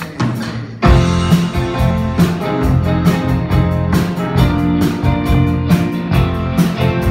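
Live rock band starting a song: after a brief quieter lead-in, the full band comes in about a second in, with electric guitars, electric bass and drum kit playing a steady beat.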